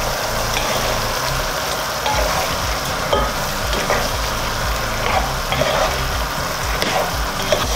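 Pork and liver cooking in their soy-vinegar marinade in a pot, stirred with a black plastic spatula that scrapes and knocks lightly against the pot a few times, over a low steady hum.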